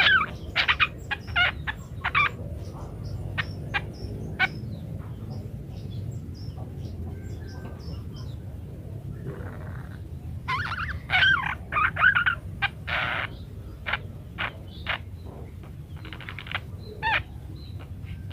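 Budgerigars chirping and warbling in quick runs of short, pitch-bending calls, busiest at the start and again a little past the middle, over a steady low background rumble.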